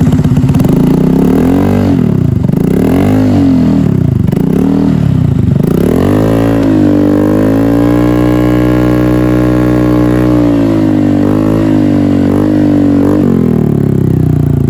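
Motorcycle engine revved through an SC Project aftermarket exhaust with its single silencer insert fitted: about four quick throttle blips, then a rev held high for about four seconds, a few shorter blips, and back down to idle near the end.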